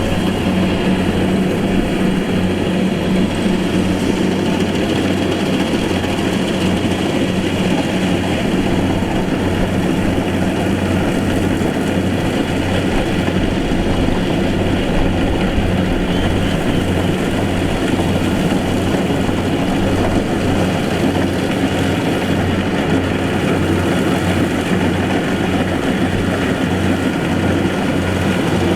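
Rice combine harvester's diesel engine running steadily with a constant low hum, with the machine's working clatter mixed in.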